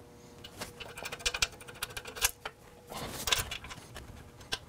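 Socket ratchet clicking in short, irregular runs as bolts are loosened and backed out of a steel lift frame.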